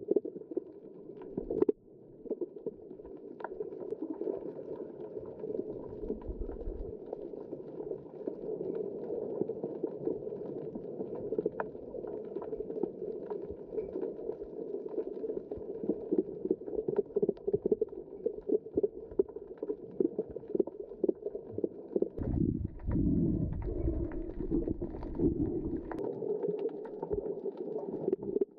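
Underwater ambience picked up by a GoPro action camera in its waterproof housing during a free dive: a muffled, steady wash of water noise with frequent small clicks and crackles. A deeper rumbling stretch comes about three quarters of the way in.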